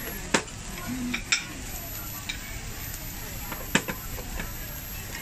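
Chicken wings, squid and meat sizzling on a tabletop Korean barbecue grill plate, with a few sharp clicks, the strongest about half a second in, near a second and a half, and near four seconds in.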